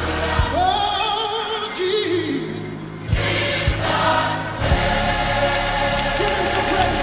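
A live gospel mass choir singing with band accompaniment and drum hits. The music eases off briefly about two seconds in, then the full sound comes back in with a drum hit around three seconds.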